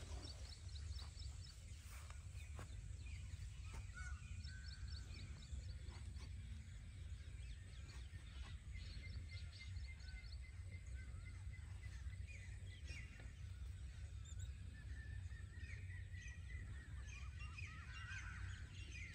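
Faint outdoor ambience: birds chirping and calling over a steady low rumble.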